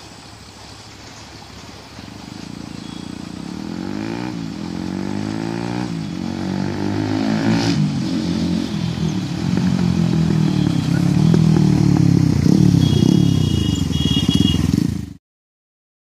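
TVS Apache RTR 200 single-cylinder engine running through a short stainless-steel full-system performance exhaust, the bike approaching under hard acceleration through the gears. The exhaust note climbs in pitch and falls back several times as it shifts up, growing louder as it nears, then cuts off suddenly.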